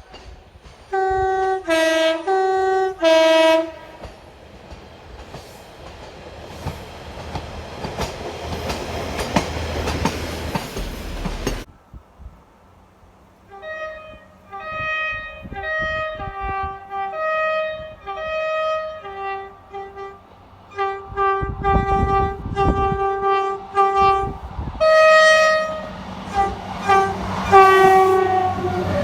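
Train horns sounding in quick runs of short blasts that step between two or three notes like a played tune. A stretch of steady rushing noise from a passing train ends in a sudden cut, then more horn tunes follow, with one longer blast near the end.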